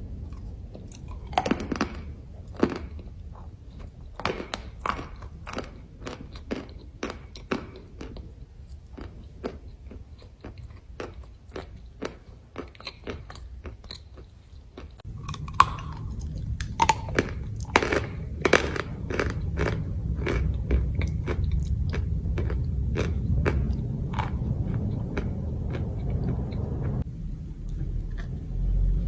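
Chalk crunching and crumbling in a quick run of sharp crackles. A steady low hum sets in underneath about halfway through.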